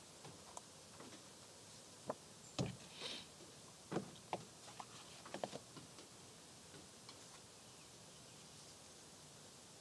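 A handful of faint knocks, taps and one short rustle, bunched between about two and six seconds in, from a person in a folding mesh chair shifting and reaching to one side.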